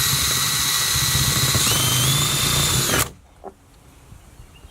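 Power drill boring a hole into the polyethylene hull of a Hobie Tandem Island kayak. The hole is a crack-stop hole just past the end of a crack. The motor whines steadily, rises in pitch about two seconds in, then stops about three seconds in.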